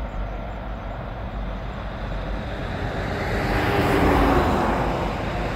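A road vehicle passing by over a steady low rumble, its noise swelling to a peak about four seconds in and then fading.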